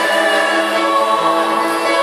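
Mixed choir of men's and women's voices singing, holding long sustained notes with the chord changing about a second in.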